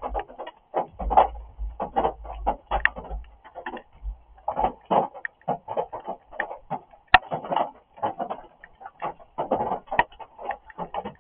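Rain drumming: a dense, irregular run of taps, with one sharper tick about seven seconds in.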